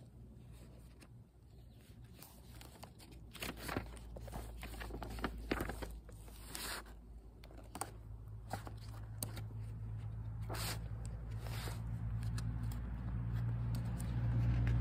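Scattered soft rustles and clicks of a paperback book's pages being handled. A low vehicle rumble grows steadily louder through the second half as a car approaches.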